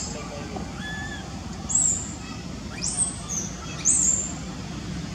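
Birds chirping: three short, sharp, very high chirps about two, three and four seconds in, and a softer whistled note repeating about once a second, over a steady low background hum.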